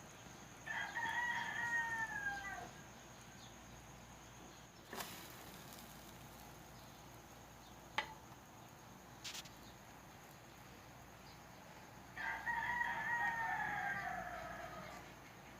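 Two long, drawn-out calls about ten seconds apart, each lasting roughly two seconds and falling in pitch at the end, typical of a rooster crowing. A single sharp click comes between them.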